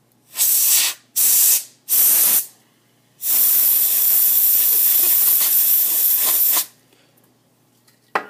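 Canned air duster spraying: three short blasts, then one long blast of about three seconds. The can is nearly empty.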